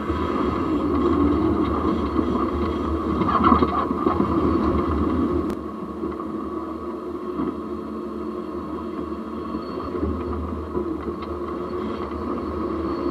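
A Jeep on the move, heard from down at its front axle: steady running noise from the drivetrain and tyres, with a sharp click about five and a half seconds in.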